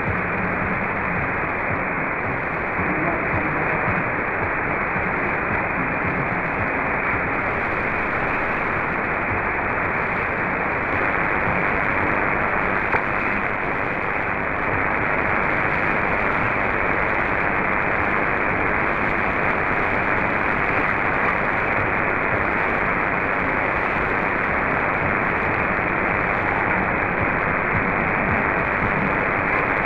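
Shortwave radio static from an SDR receiver in synchronous AM mode, tuned to a weak signal on 6205 kHz: a steady hiss with nothing above about 2.5 kHz.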